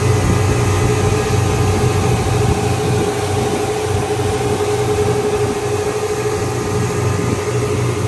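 Twin 200 hp outboard motors running steadily at speed, a constant engine drone over the rush of wind and water as the boat planes.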